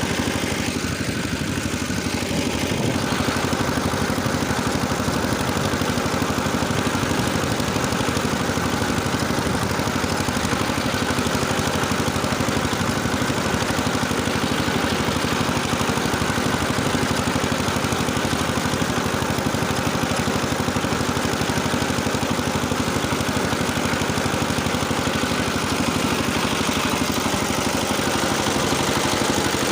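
Engine running steadily under load while driving a rotary tiller through the soil.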